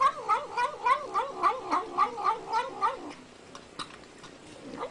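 A pet animal giving a quick run of short, wavering, pitched calls, about four a second, that stops about three seconds in.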